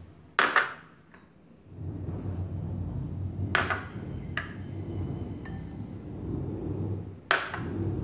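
A glass mixing bowl clinking sharply several times as chopped vegetables are tipped into it from small bowls, over a steady low hum.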